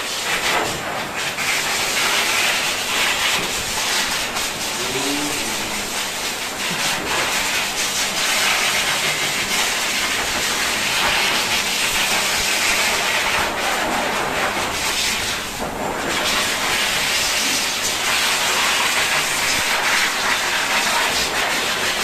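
A high-velocity pet grooming dryer blows a steady, loud rush of air through its hose onto a dog's coat.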